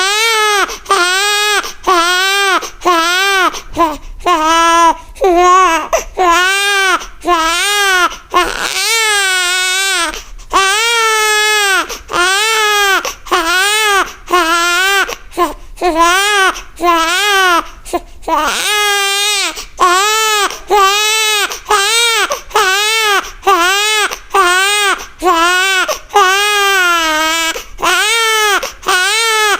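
A baby crying hard and without let-up: a run of loud wails, about one a second, each rising and falling in pitch, with short catches for breath between them.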